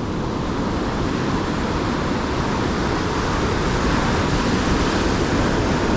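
Ocean surf breaking and washing in among shoreline rocks: a steady, even noise with no let-up.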